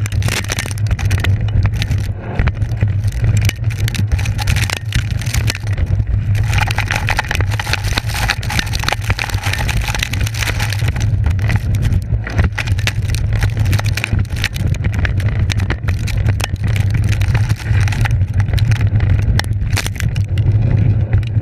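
Mountainboard riding fast downhill over grass and rough ground: the pneumatic tyres rumble and the board and trucks knock and rattle constantly, with heavy wind rumble on the board-mounted microphone. In the middle, tall grass hisses as it brushes past the board, and near the end dirt sprays up around the wheel.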